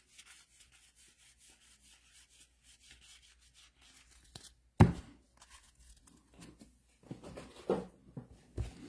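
Trading cards and card-pack wrappers being handled: faint rustling and tearing for the first few seconds, one sharp knock on the table about five seconds in, then more scattered handling noises near the end.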